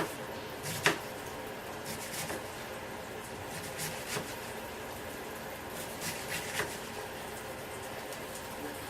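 A knife cutting cabbage on a cutting board, a few sharp knocks at irregular intervals over a steady kitchen hiss.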